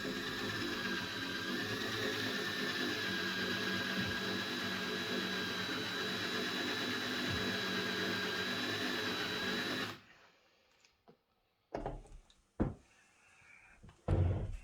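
Electric drill running at a steady speed, drilling out a seized forend-cap screw on a Winchester rifle. It stops abruptly about ten seconds in, followed by a few short knocks near the end.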